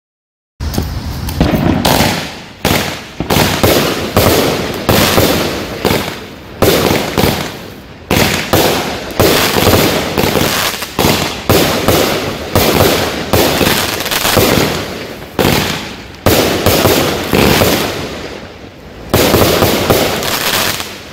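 A 25-shot, 500-gram 'Fake News Alert' consumer fireworks cake firing shot after shot, starting about half a second in. It goes at roughly one shot a second, each aerial break a sharp bang that dies away over about a second.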